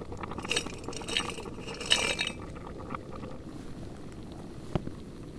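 Frozen prawns tipped from a metal food canister into hot water in a Jetboil pot, clinking and splashing in several bursts over the first two seconds or so. After that, a steady low hiss from the lit gas stove with a couple of faint clicks.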